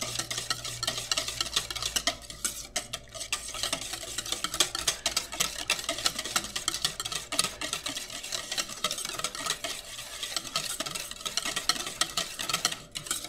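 Wire whisk beating a thin pudding mixture in a stainless steel bowl: fast, continuous scraping and clinking of the wires against the bowl.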